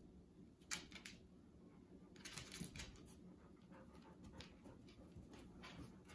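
Faint, scattered clicks and scuffs of two dogs' claws on a tile floor as they move around each other in play, with a sharper click less than a second in.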